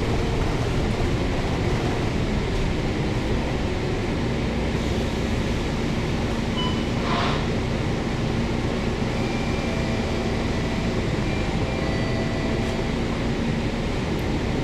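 Volvo B9TL double-decker bus's six-cylinder diesel engine, heard from the upper deck, as the bus rolls to a halt and idles, a steady rumble with a steady hum from about four seconds in. There is a brief hiss about seven seconds in.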